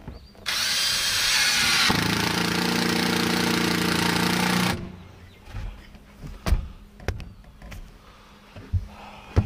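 Cordless drill driving a screw down through a boat seat base into the deck, running for about four seconds and settling into a steady pitched whir. A few knocks and thumps follow.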